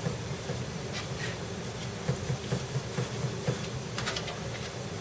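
A steady low buzzing hum, with a few faint light taps and knocks.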